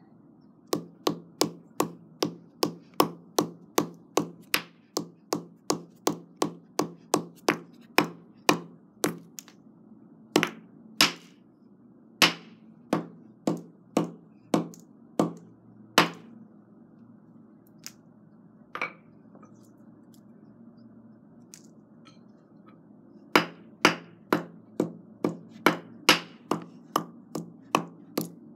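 Hammer striking earbuds on concrete: a long run of sharp blows, about two a second, then a lull with a single blow, and another quick run of blows near the end.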